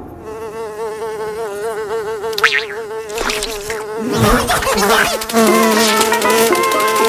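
Cartoon housefly buzzing: a steady, wavering drone. About two and a half seconds in a short whistling sweep passes over it, and from about four seconds on other busy cartoon sound effects join the buzz.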